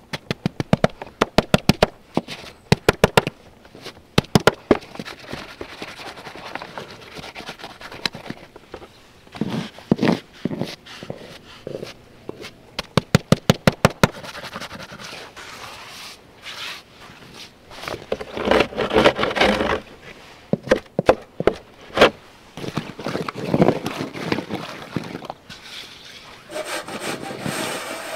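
Sharp clicks in quick runs and swells of scraping on the ice of a backyard rink. About 26 seconds in, a steady mechanical drone begins.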